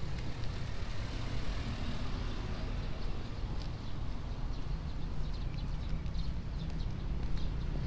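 Roadside street ambience: a steady low rumble of road traffic, with faint short high chirps in the second half.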